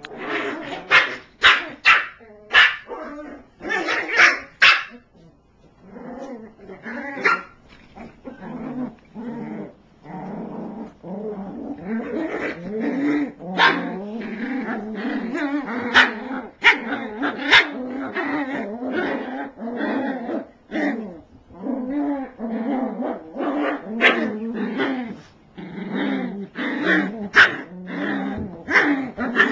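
Eight-week-old cairn terrier puppies play-fighting: a run of sharp yips and barks in the first few seconds, then near-continuous growling with high yips breaking through every few seconds.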